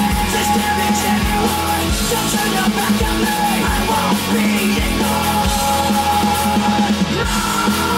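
Rock song playing: a full band with a steady drum beat, in a stretch without sung lyrics.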